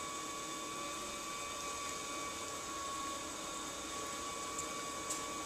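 Electric potter's wheel spinning at a steady speed: an even hiss with a thin, steady high whine.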